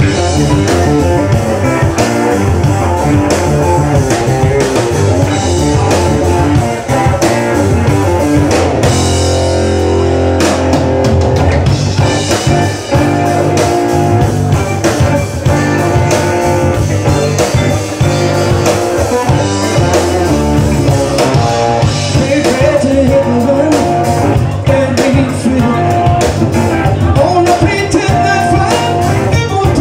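Live electric blues-rock band playing: drum kit, electric bass and electric guitar.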